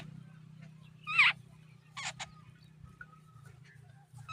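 Jungle babblers giving short, harsh, nasal calls: one loud call about a second in, two quick ones around two seconds, and another near the end, over a low steady hum.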